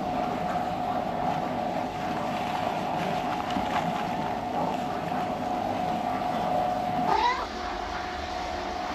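Rustling of a thin foam sheet being lifted and folded by hand, then a cat's meow as a short rising cry about seven seconds in, over a steady hum.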